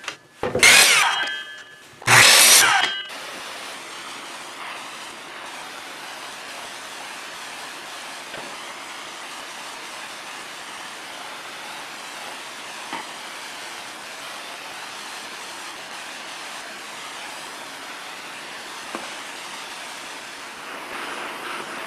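A handheld propane torch hissing steadily while its flame scorches a thin wooden slat. Near the start there are two short, loud bursts from a miter saw cutting.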